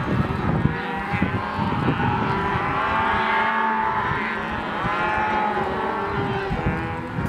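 A herd of beef cows and calves bawling and mooing, many calls overlapping one another without a break, as the herd is driven on the move.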